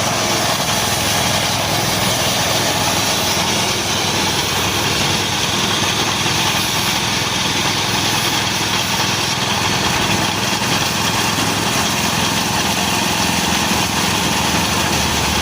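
Small petrol engine running steadily, driving a bandsaw with 40 cm wheels, at an even level throughout.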